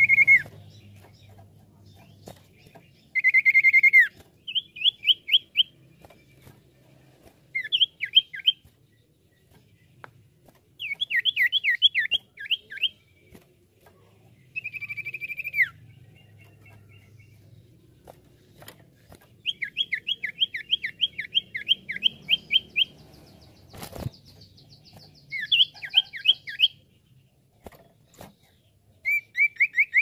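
Common iora (cipoh) calling in bouts: long high whistles that slur downward at the end, and rapid runs of sharp, quickly falling notes, several of them in a row. A single sharp click sounds about three-quarters of the way through.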